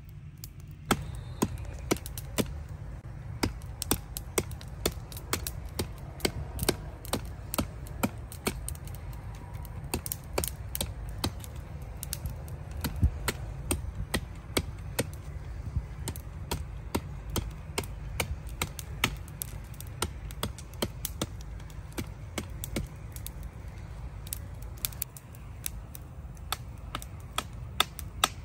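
Wood campfire of twigs and branches crackling, with sharp irregular pops several times a second over a low steady rumble. One louder knock comes near the middle.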